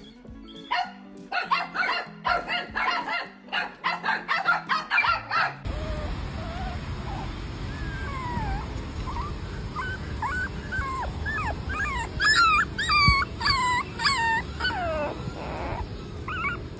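A small puppy whimpering and yipping in high, wavering cries that come more often and louder towards the end, over a steady low rumble. For the first five or so seconds, a different run of rapid pitched sounds plays and then cuts off abruptly.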